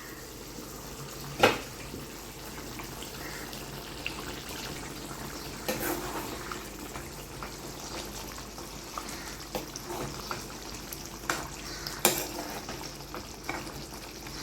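Curry simmering in a cooking pot while a spoon stirs it, with a few sharp metal clinks against the pot.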